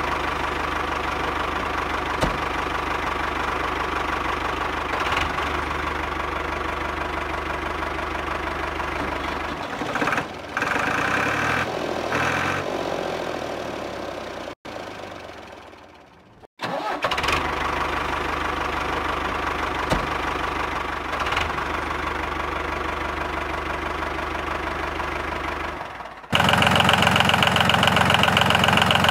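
Steady engine-like running of a small motor, broken by abrupt cuts in the middle; near the end a louder running sound of a different pitch takes over.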